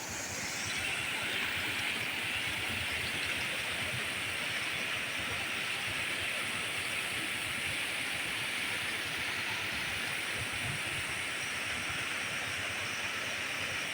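Waterfall rushing steadily: a constant, even noise of falling water, a little louder from about half a second in.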